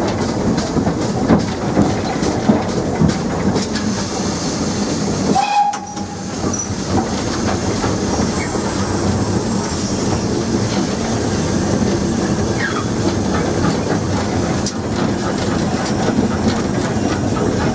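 Running noise heard from the footplate of a GWR 57xx pannier tank steam locomotive on the move: a steady, loud clatter of the engine and wheels over the rail joints, with a short dip about six seconds in.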